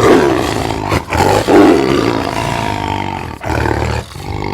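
A big cat roaring, several roars with brief breaks between them.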